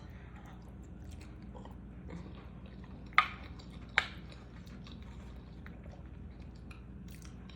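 Close-miked chewing of food with soft wet mouth clicks, and two sharper clicks about a second apart a little after three seconds in.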